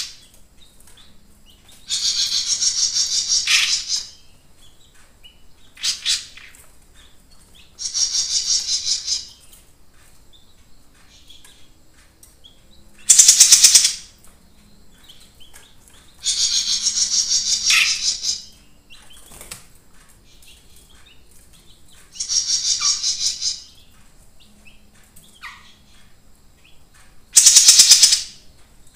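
Caged jenggot mini songbird singing in loud, rapid trilled bursts of one to two seconds each, seven in all, with pauses of a few seconds between. This is its full 'gacor' song, as used for a lure recording to draw other birds.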